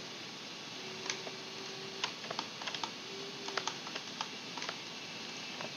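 Irregular clicks of a computer keyboard and mouse, single ones and quick little clusters.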